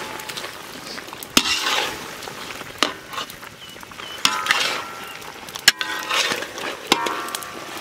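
Long-handled metal ladle scraping and clanking against a large iron kadai as a thick quail fry is stirred, in repeated strokes every second or so with a short metallic ring, over the sizzle of the meat frying.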